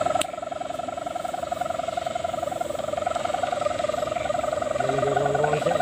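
Kite hummer (sendaren) on a flying gapangan kite, droning steadily in the wind: a fast-pulsing buzz at one pitch with a fainter higher overtone.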